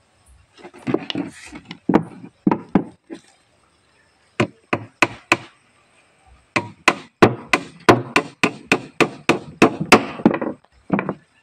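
Claw hammer driving nails into the plywood side of a homemade egg incubator box, sharp wooden knocks. A few scattered strikes come first, then a fast, even run of about three strikes a second in the second half.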